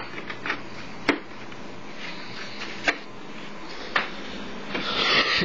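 A plastic gallon jug being picked up and handled, giving several sharp knocks and clicks at irregular moments, with a louder rustling, scraping noise near the end.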